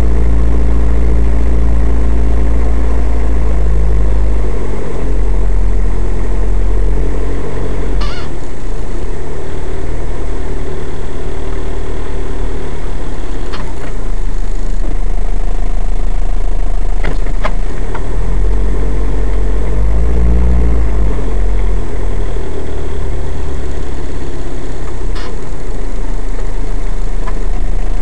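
Car engine running at low speed, heard from inside the cabin through a dashcam, its steady low hum shifting in pitch a few times as the car creeps along. A few short sharp clicks break in, the first about eight seconds in.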